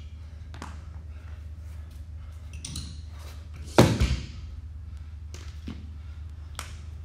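A rubber bumper plate is slid onto a barbell sleeve and knocks home against the plate already loaded, one loud clunk a little past halfway. Lighter clicks of metal on the sleeve and collar come before and after it, over a steady low hum.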